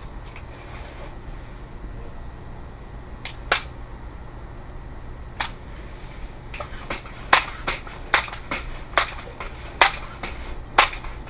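A couple of single sharp clicks, then from about halfway a run of sharp metallic clicks, roughly two a second: a break-barrel air rifle being handled and broken open for cocking.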